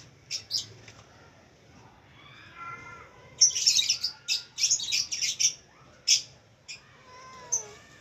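Red-vented bulbul calling: a couple of sharp high calls, then about three and a half seconds in a rapid run of loud harsh calls lasting about two seconds, followed by a few more single calls.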